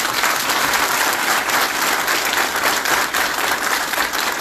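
An audience applauding: many people clapping together in a dense, steady patter.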